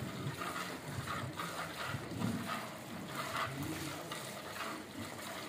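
Milk squirting into a pail as a Gir cow is milked by hand, a hiss repeated in quick rhythmic squirts.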